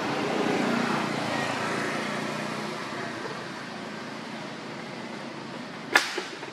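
Steady rushing outdoor background noise, louder in the first couple of seconds and then easing, with one sharp click near the end.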